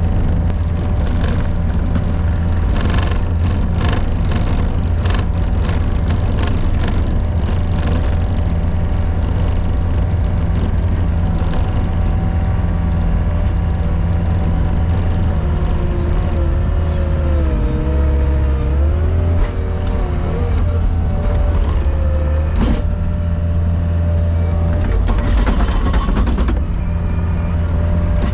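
Gehl RT65 tracked skid steer's diesel engine running hard at full throttle while pushing snow, a steady drone whose pitch dips and recovers midway as the machine strains under load. Scattered clicks and rattles from the machine come and go, mostly early and near the end.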